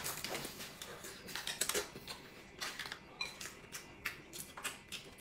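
Faint, irregular clicks and crinkles of eating: a man chewing an egg tart and handling its foil cup.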